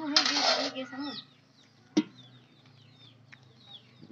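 Clattering in an aluminium cooking pot: a short rattling rush during the first second, then one sharp clink about two seconds in. Chickens cluck faintly in the background.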